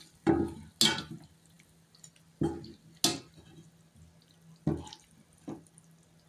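Water splashing and dripping in short separate bursts, about six of them, loosely in pairs.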